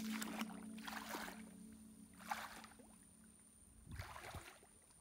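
Rubber boots wading through shallow muddy water, each stride a watery swish, a few strides spaced about a second apart, with softer low sloshes near the end. Background music fades out in the first half second.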